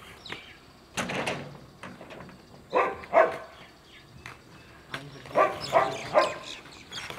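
A dog barking repeatedly: one bark, then a pair, then a run of three.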